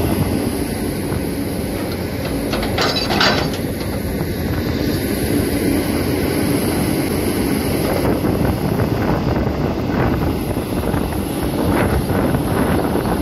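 Caterpillar hydraulic excavator's diesel engine running steadily under load while it digs, with the steel bucket scraping and knocking through dry, sandy soil. A few sharper scrapes stand out about three seconds in and again near the end.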